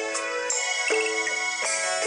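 Instrumental music: a melody of held notes that changes every half second or so, with no singing.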